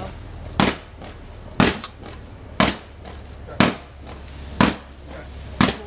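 Fireworks fired in sequence from the suspension bridge: a sharp bang about once a second, six in all.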